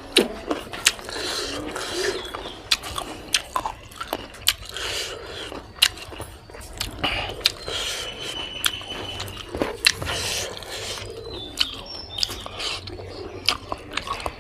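A person biting and chewing spicy pork with the mouth, making many sharp, irregular clicks and smacks over a continuous wet chewing sound.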